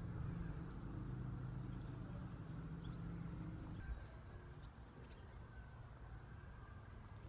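Quiet outdoor riverside ambience: a low rumble that drops off about four seconds in, with a few faint, short, high bird chirps.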